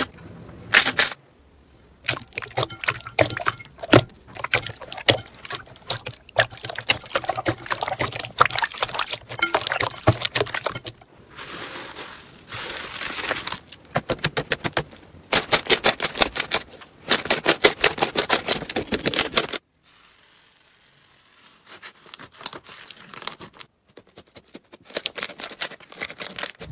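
Slime being squeezed, pressed and poked by hand: wet squelches and sharp crackling pops of trapped air. Past the middle come rapid runs of loud pops, several a second, followed by a quieter, softer stretch before the crackling returns near the end.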